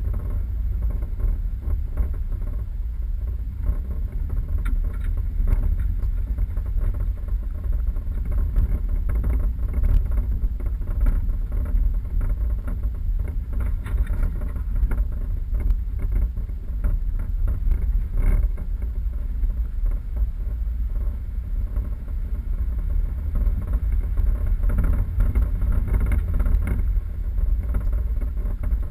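4x4 vehicle driving off-road: a steady low rumble of engine and tyres on rough track, with scattered knocks and rattles.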